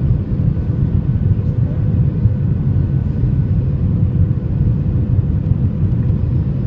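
Airbus A320 jet airliner on approach: a steady low rumble with a faint, even hum above it.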